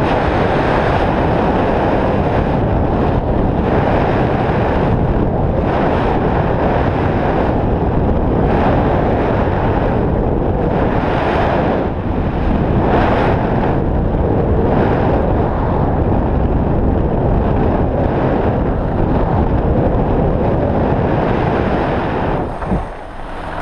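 Wind rushing over a body-mounted action camera's microphone during a fast descent on packed snow, with the hiss of the snow under the rider's edges. Brighter swells come every second or two, and the noise dips briefly near the end.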